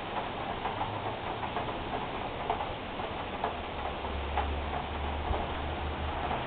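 Heavy rain falling, a steady hiss with irregular close drips ticking on hard surfaces. A low rumble comes in about four seconds in and fades after about a second and a half.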